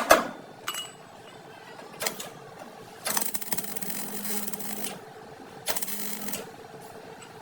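One last knock right at the start, then a power tool runs in two short bursts with a rapid rattle and a low hum: the first for about two seconds, the second shorter, near the end.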